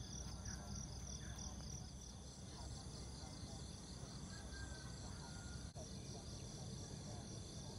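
Insects in the grass chirring in high, evenly repeating pulses, with a few short faint chirps and a low rumble underneath.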